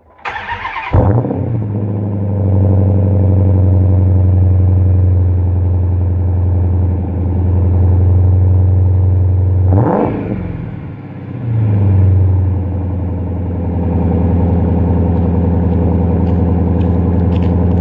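Dodge Challenger cold start: the starter cranks briefly and the engine catches about a second in, then settles into a steady fast idle. About ten seconds in a short sharp noise cuts across the engine sound, the idle dips for a moment and then steadies again.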